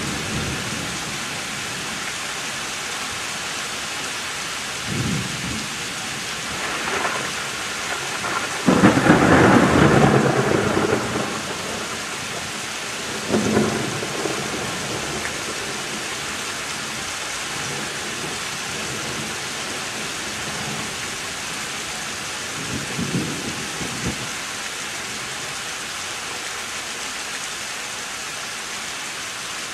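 Steady rain falling through a thunderstorm, with several rolls of thunder breaking over it. The loudest comes about nine seconds in and rumbles for a couple of seconds, with shorter ones a few seconds before and after it and another past the two-thirds mark.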